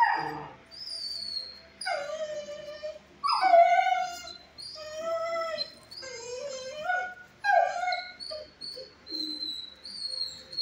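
A dog whining and howling in a series of about six drawn-out calls, each around a second long and sliding in pitch, with thin high-pitched squeals running alongside.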